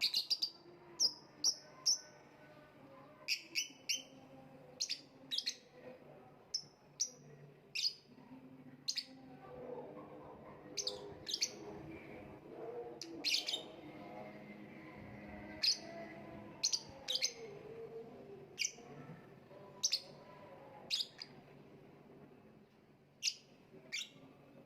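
Lovebird giving short, sharp, high chirps, singly and in quick runs, every second or so with a few longer pauses.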